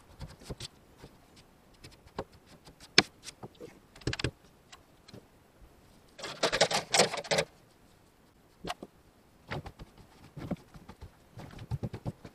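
Handling noises inside a truck cab: scattered knocks and clicks of objects being moved, one sharp click about three seconds in, and a second-long burst of rapid clattering and rustling a little after six seconds.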